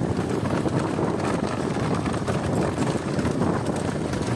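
A pair of racing bulls galloping on a dirt road, pulling a light cart on two large spoked wooden wheels: a dense clatter of hooves and cart, with wind buffeting the microphone.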